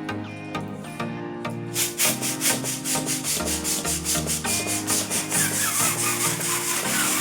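Background music with sustained notes, joined about two seconds in by a loud, steady rasping rubbing noise that pulses at a regular beat.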